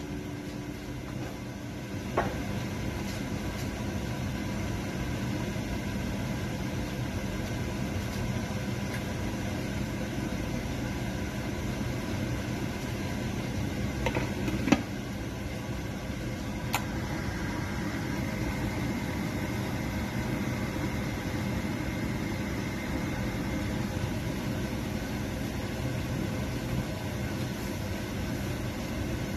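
Steady hum and hiss of a stove heating a pan of soup broth as it comes to a boil, with a few sharp clinks in the middle as a glass pan lid is handled.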